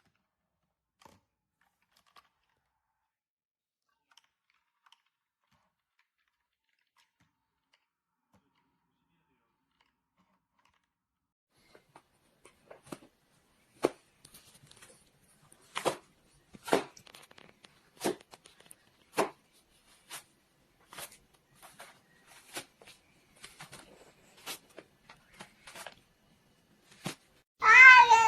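Long near-quiet stretch, then a run of sharp clicks or crunches about one a second, in a cat and dog clip. Near the end a cat starts to meow.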